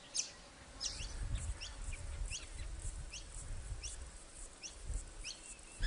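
Repeated short, high bird chirps, about two or three a second, over a low rumble like wind.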